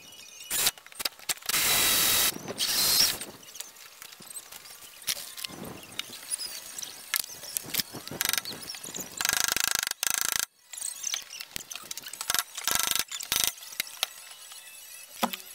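Irregular mechanical clicking and clatter of hand-tool work on PVC pipe, with two louder rasping bursts of a second or so, one about two seconds in and one around the middle.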